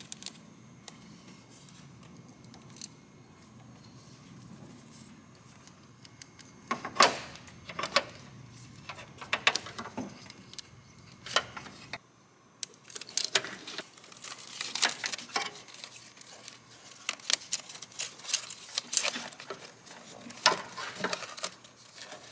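Scattered metallic clicks and clinks from a hose clamp tool and engine parts being handled in an engine bay, as a hose and its clamp are refitted and then wiring connectors are worked on. The first few seconds are quiet, and the clicking becomes busier about halfway through.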